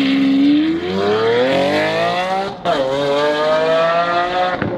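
Mercedes-AMG E63 S twin-turbo V8 breathing through a Capristo exhaust, accelerating hard with its pitch rising steadily. It cuts out briefly at a gear shift about two and a half seconds in, then climbs again and eases slightly near the end.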